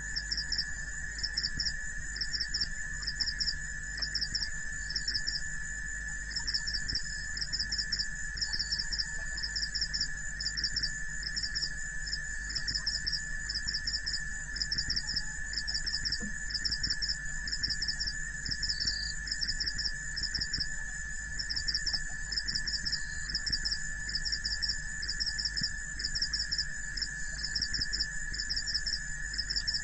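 Night insects at a waterhole: a steady high trill under a cricket chirping rhythmically, a little over once a second, each chirp a quick cluster of pulses.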